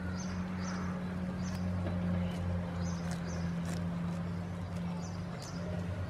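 A steady low hum with short, high bird-like chirps repeating every half second to a second above it.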